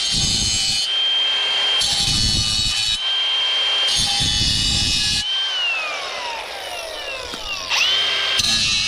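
Milwaukee Fuel cordless cutter with a diamond blade cutting steel, throwing sparks: a steady high whine from the spinning blade with three grinding cuts in the first five seconds. Then the whine falls as the blade spins down off the trigger, rises sharply when it is spun up again, and a fresh cut starts near the end.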